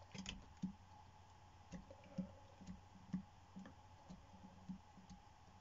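Faint, irregular clicks and soft taps, about a dozen at roughly two a second, over a faint steady hum.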